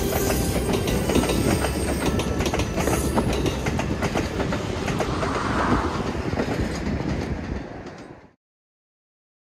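Train running on the line, its wheels clicking rhythmically over rail joints over a steady rumble; the sound fades out about eight seconds in.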